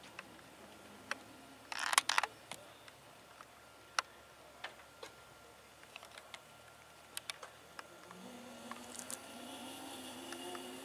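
Scattered light clicks and a brief loud clatter about two seconds in, then from about eight seconds in a faint rising whine as the Airbus EC120B Colibri's Turbomeca Arrius 2F turboshaft engine begins to spool up on its starter.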